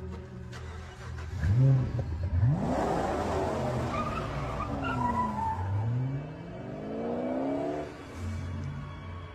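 Car engine revving up hard as the car pulls away, with tyres skidding and hissing for a few seconds. The engine then climbs steadily in pitch through a long acceleration that ends about eight seconds in.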